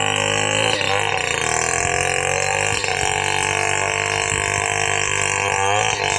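Chainsaw running steadily while cutting wood, its engine pitch dipping and recovering a few times under load.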